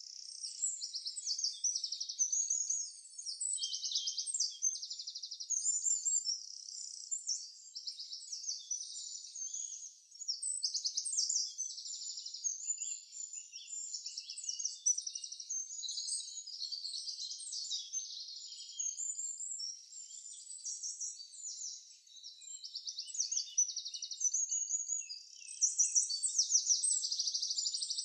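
Songbirds singing in a continuous chorus of high chirps and fast trills, several phrases overlapping, with no lower sound beneath them.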